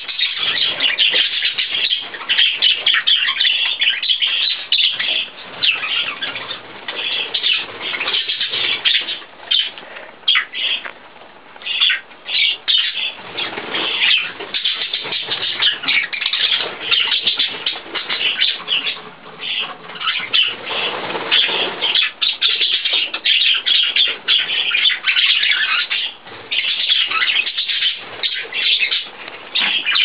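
Budgerigar chatter: a continuous stream of rapid, high chirps and warbles, thinning out for a few seconds around the middle.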